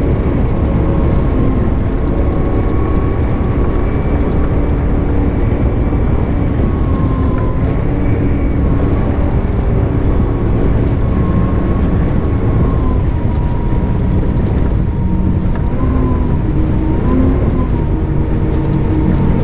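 Fountain 42 Lightning powerboat's engines running at speed across choppy water: a steady, loud drone whose pitch dips and rises slightly a few times, over a dense rush of wind and water.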